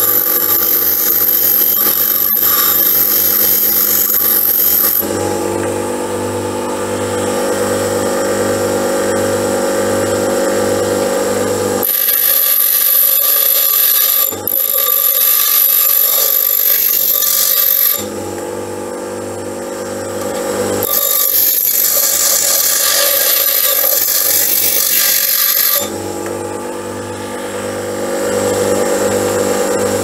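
MacAllister bench grinder running with a steady hum while a steel lathe tool bit is ground against its wheel to shape a cutting tooth. The high grinding hiss comes and goes in spells of several seconds.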